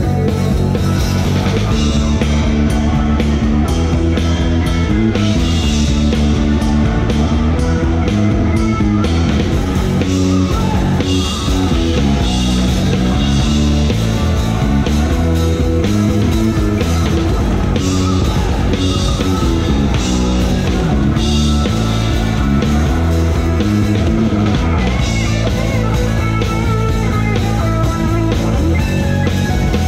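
A rock band playing live on stage, the drum kit close by, with electric guitar and band music filling every moment.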